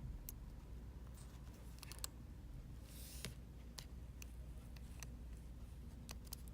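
Scattered faint clicks and light taps of small phone parts and tools being handled and fitted during a phone repair, with a short scrape about three seconds in, over a steady low hum.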